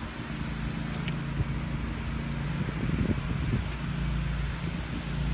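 Steady low motor hum over a rumble, with a brief wavering about three seconds in.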